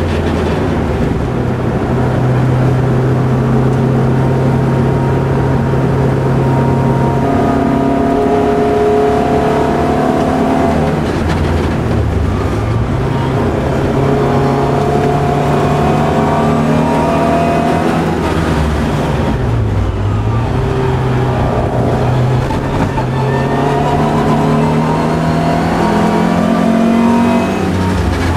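Opel Kadett C race car's engine, heard from inside the cabin, running hard at high revs around the track. Twice the engine note dips briefly and then climbs again.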